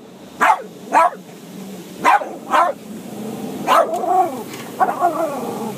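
Lhasa Apso barking inside a car at the car wash wand circling the car: five sharp barks, then two longer, wavering barks near the end.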